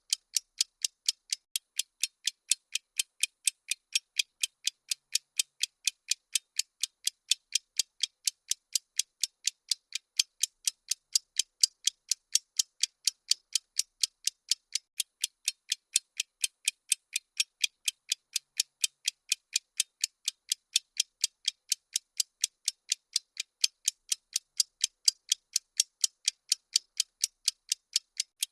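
Countdown-timer ticking sound effect: a steady run of sharp, high clicks, about three a second, evenly spaced and unchanging.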